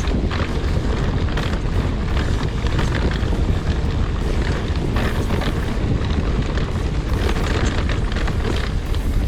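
Wind buffeting the camera microphone during a mountain-bike ride, a steady rough rumble, with frequent short knocks and rattles from the bike over rough trail.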